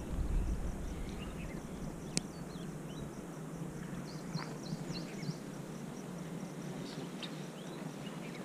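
Outdoor hillside ambience: small birds chirping now and then over a steady low background rumble, with one sharp click about two seconds in.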